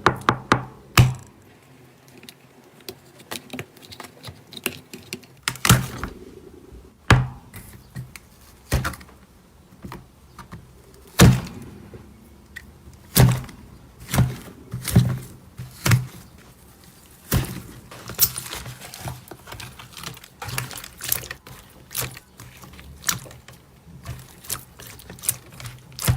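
Soft slime being squeezed and poked by hand, giving irregular sharp pops and clicks of trapped air, about one a second.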